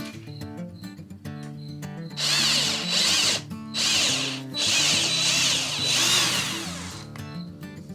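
Power drill running in several bursts of a few seconds each, over background guitar music.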